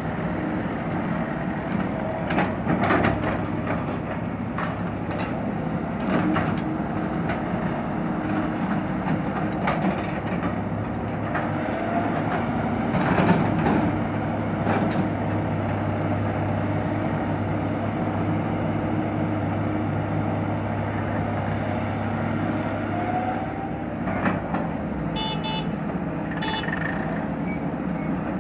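Kato HD700VII crawler excavator's diesel engine running steadily under load as it digs and loads soil, with occasional knocks from the bucket and soil. Two short horn toots come near the end.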